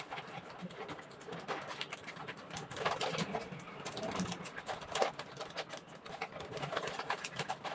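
Plastic vacuum storage bag crinkling and crackling in short irregular rustles as fingers press its zip seal closed.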